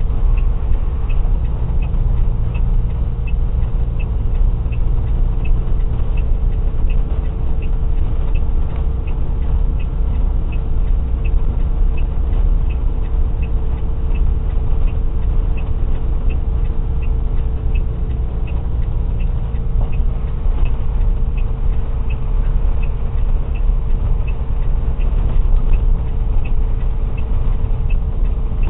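Truck driving along, heard from inside the cab: steady engine and road rumble with a constant hum. A light, high tick repeats about twice a second over it.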